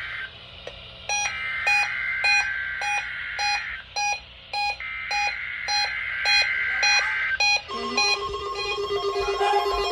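Weather-radio emergency alert test: two long, screechy SAME data bursts of the alert header, about a second apart, over an even beeping of roughly two and a half beeps a second. Near the end a steady tone takes over.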